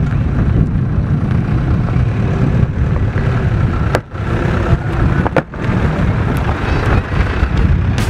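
A minivan driving slowly across sand and passing close by, its engine and tyres giving a steady low rumble.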